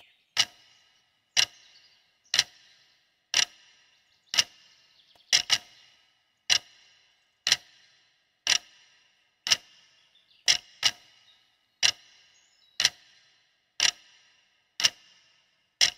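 Regular sharp ticking, about once a second, each tick with a short ringing tail; twice a tick comes doubled.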